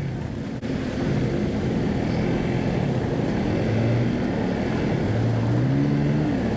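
Yamaha R15 motorcycle's single-cylinder engine running at low speed while ridden through floodwater, its pitch rising and falling with the throttle, over a steady wash of splashing water.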